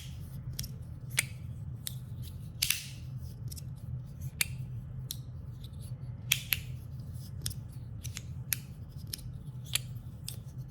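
3D printed plastic magnetic fidget slider being slid back and forth, its halves snapping into place with irregular sharp, shrill clicks, about one or two a second.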